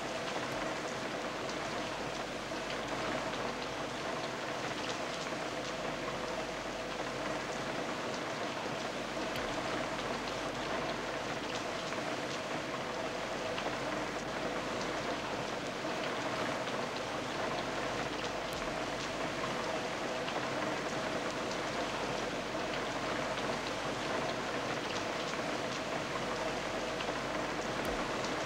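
Rain falling through a broken roof and dripping into standing water on a flooded floor: a steady hiss of falling water with many scattered drip ticks, over a faint steady tone.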